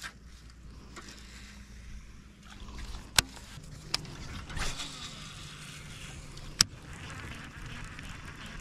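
Electric trolling motor on a bass boat humming steadily, its pitch dropping a little a few seconds in. Three sharp clicks and a short rush of noise near the middle.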